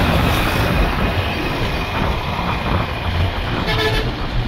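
Intercity bus travelling at speed, heard at an open window: a steady rush of wind and road noise over a low engine and tyre rumble. A brief high-pitched tone sounds near the end.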